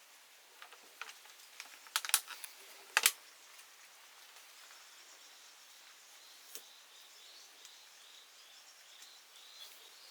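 A few sharp clicks and knocks in the first three seconds, the loudest two about a second apart, over a steady soft hiss. From about halfway a bird gives a faint, quick series of repeated high chirps.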